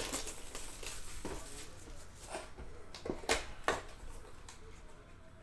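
Plastic shrink-wrap being torn off a sealed Panini Crown Royale card box and the cardboard box being opened: crinkling and rustling with several sharp crackles, the loudest about three seconds in.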